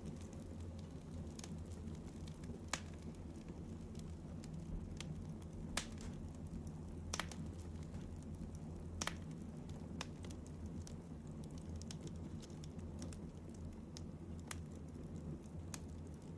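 Steady low hum with soft, irregular clicks and crackles scattered through it; no snoring is heard.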